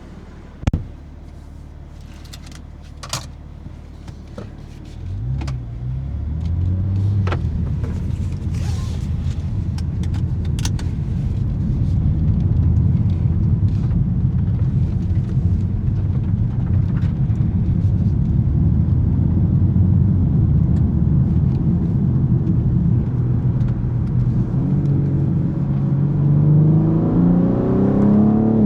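BMW M3 Competition's S58 3.0-litre twin-turbo straight-six idling, with a sharp knock about a second in and a few light clicks. About five seconds in the engine note rises as the car moves off, then runs steadily under load. Near the end it climbs in pitch under acceleration and levels off at a gearchange.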